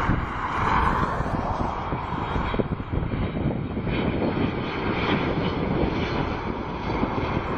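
Boeing 777 airliner on landing approach, its twin jet engines running at approach power with a steady rumble and a broad roar.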